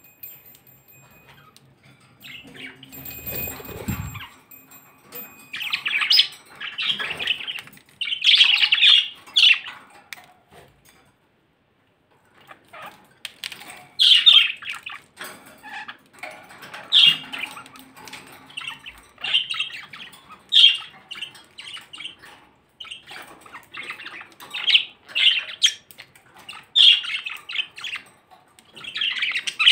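Budgerigar chattering and chirping in quick bursts, with a pause of about two seconds near the middle. A low rumble about three seconds in.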